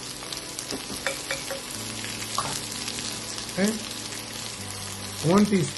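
Sliced onions sizzling steadily in hot oil in a pan, with small crackles and pops.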